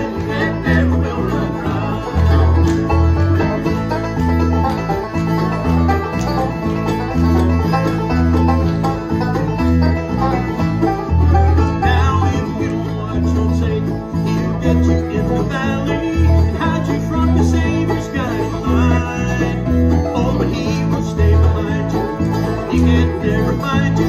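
Bluegrass band playing an instrumental passage: banjo rolls and strummed acoustic guitars over a steady, plodding bass line.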